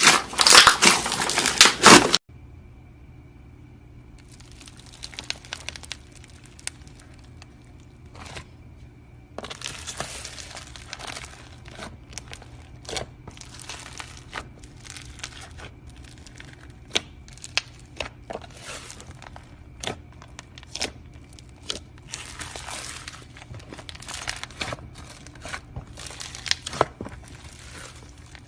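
Hands squeezing and working crunchy slime: dense crinkling crackles for about two seconds that stop suddenly. Quieter scattered crackles and pops follow, over a faint steady hum.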